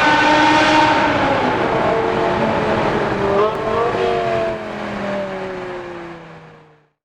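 BMW M5 E60's V10 running through a Kreissieg valve-controlled sport exhaust, loud and high-revving at first; the pitch breaks and recovers about halfway through, then falls steadily as the sound fades away to nothing.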